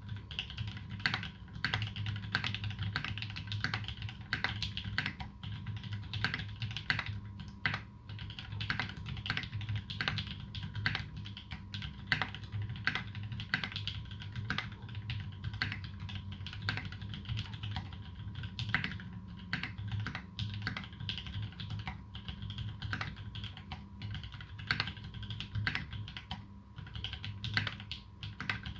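Continuous typing on a custom mechanical keyboard with lubed Holy Panda tactile switches with clipped sliders and GMK keycaps, a fast, irregular stream of keystroke clicks. A steady low hum lies under it.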